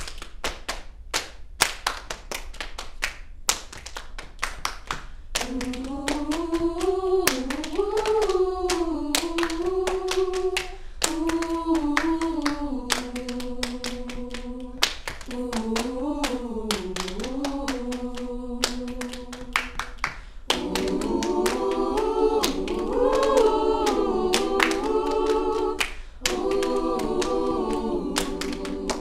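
Choir singing a cappella without words, held chords that shift in pitch, over steady rhythmic hand clapping. The clapping runs alone for the first five seconds or so before the voices come in, and the singing grows fuller and louder about two-thirds of the way through.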